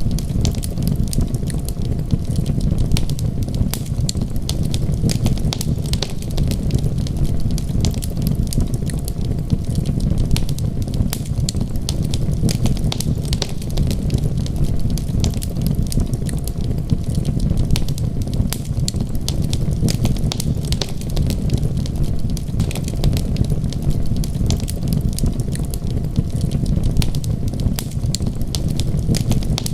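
Wood fire crackling, with frequent small sharp pops over a steady low rumble.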